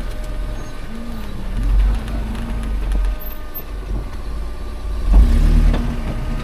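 An off-road 4x4's engine running at low revs as the vehicle creeps down a steep, rutted dirt trail, under a steady low rumble. The sound swells briefly about two seconds in, and louder a little after five seconds in.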